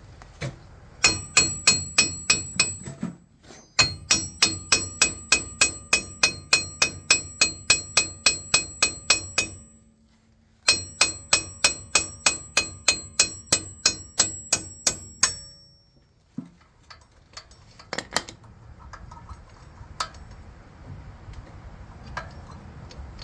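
Hammer striking old wheel studs to drive them out of a truck's rear wheel hub, in three runs of quick, even blows, about three or four a second, each ringing out metallically. After the hammering stops, a few light metal clinks.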